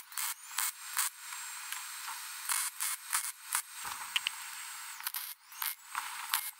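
Wire-feed (MIG) welder laying short welds on steel supports: an irregular, crackling sizzle of the arc in bursts, with one steadier stretch of sizzling about a second in.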